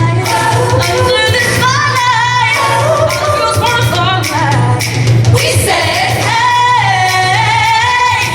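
Music with female singing over a steady, sustained bass line.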